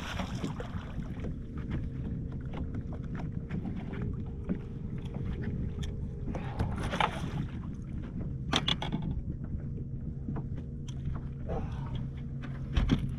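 Steady low hum from a bass boat, with wind noise on the microphone and a few brief knocks or splashes about seven and nine seconds in.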